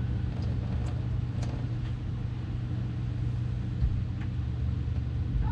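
A motor or engine running steadily with a low hum, with a few faint clicks over it.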